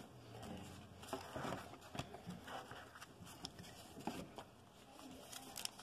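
Faint handling sounds of baseball trading cards and a sealed foil card pack: soft rustling with a few light clicks, the clearest about two seconds in.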